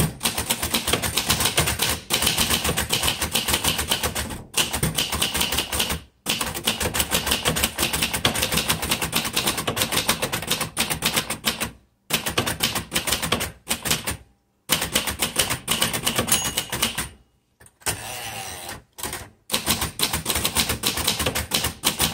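1962 Royal Custom manual typewriter being typed on quickly: a fast run of key strikes, broken by a few short pauses.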